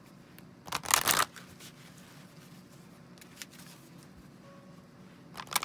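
A deck of oracle cards shuffled by hand: a short rustle about a second in, then a quick run of card flicks near the end.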